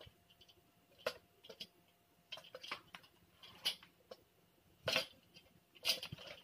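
Hand-assembly handling noises on a metal-frame table with a laminated panel shelf: a string of irregular light knocks, taps and scrapes as the parts and styrofoam packing are handled. The two loudest knocks come about five and six seconds in.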